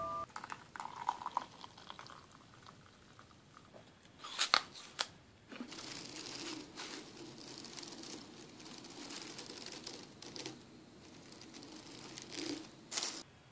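Close, soft crunching and crinkling, with a few sharper, louder crunches about four and a half seconds in and again near the end.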